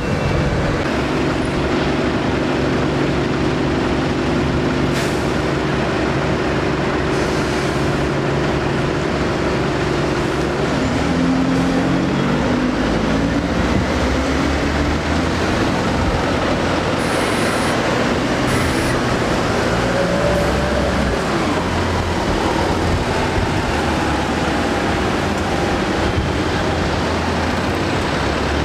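London double-decker diesel buses in street traffic: one bus engine runs with a steady drone, then rises in pitch as the bus pulls away about eleven seconds in. A few short hisses of air break in, and traffic noise continues underneath.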